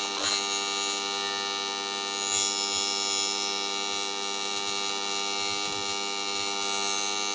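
TIG welding arc buzzing steadily while a bead is run on an aluminum plate, a hum of many even tones with a hiss above it.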